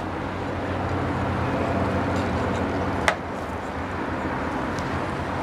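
Steady street traffic noise, swelling slightly over the first couple of seconds and then holding, with a single sharp click about three seconds in.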